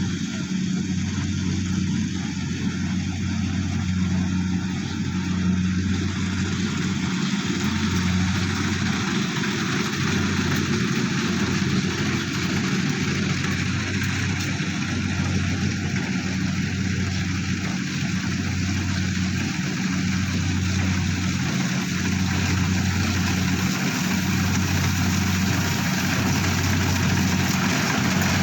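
Engine of a rice harvesting machine running steadily, a low even hum with machine noise over it.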